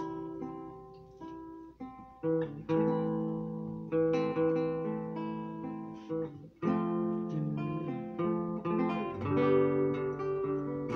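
Solo classical guitar fingerpicked, its chords and single notes ringing and fading, with two brief breaks between phrases.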